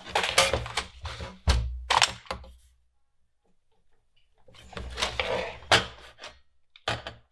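The bent metal back plate of an Amiga 500 keyboard being pressed down and shifted on the bench to straighten it: clunks, knocks and scraping in two spells with a quiet pause between, and a short knock near the end.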